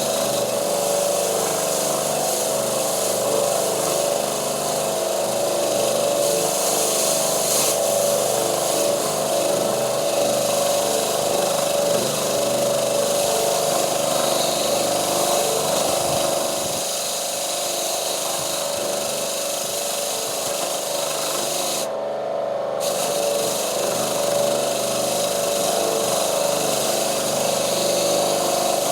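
A power tool running steadily with a constant whine and hiss. The hiss cuts out briefly near the three-quarter mark.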